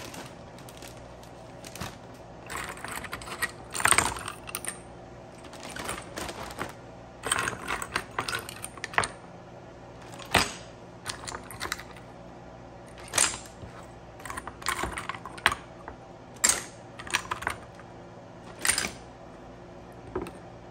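Hard sea snail shells clacking against one another and against a wooden cutting board as they are picked up and moved, in irregular clusters of sharp clicks.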